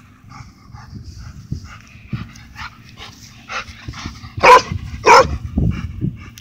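Dog giving two loud barks about half a second apart near the end, after a run of soft short whines: play barking to get the tennis ball thrown.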